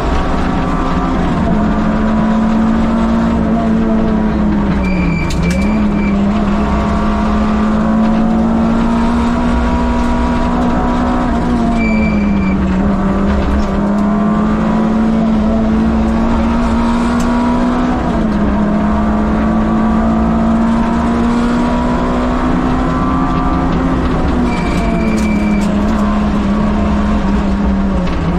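Peugeot 205 Rallye Group A's four-cylinder engine driven hard on a rally stage. Its pitch climbs slowly and then drops sharply about five times as gears change or the driver lifts for corners. A few brief high squeals come through over the engine.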